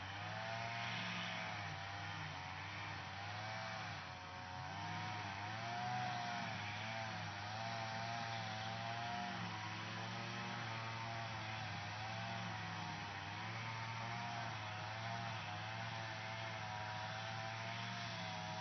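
Lawn mower running steadily, its motor hum wavering slightly up and down in pitch.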